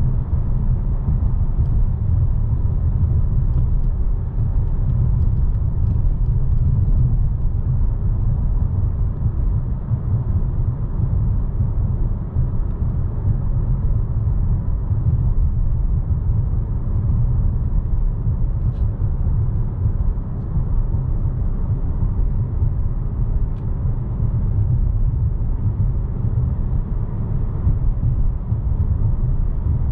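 Dodge Charger GT with its 3.6-litre V6 under way at a steady speed: an even low rumble of engine and road noise with no revving.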